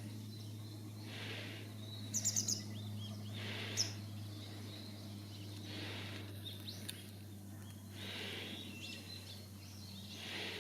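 Small birds chirping: a quick run of four high notes about two seconds in, a single sharp note soon after, and a few fainter chirps later, over a steady low hum and soft recurring swells of background noise.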